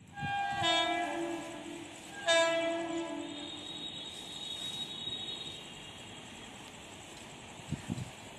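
Two blasts of an Indian Railways train horn from the approaching Mayurakshi Special, heard from a distance. The first blast is about a second and a half long and dips slightly in pitch, and the second comes about two seconds in. Then a quiet steady background with a few soft low bumps near the end.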